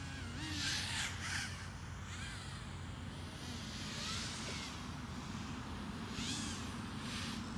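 FPV racing quadcopter's motors buzzing, the pitch rising and falling with the throttle, with several short harsh bursts as it punches the throttle or passes close.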